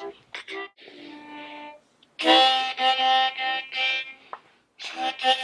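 Background music: a melody of short, separate notes with a violin-like lead, stopping briefly about two seconds in before coming back louder.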